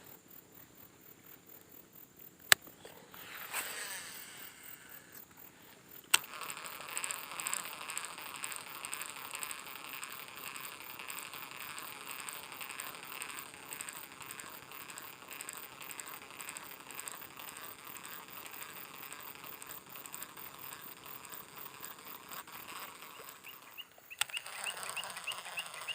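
A fishing rod cast with a whoosh, then the reel cranked steadily for about eighteen seconds, its gears making a fine fast whirring tick as the lure is retrieved; sharp clicks mark the start of the cast, the reel engaging, and the end of the retrieve.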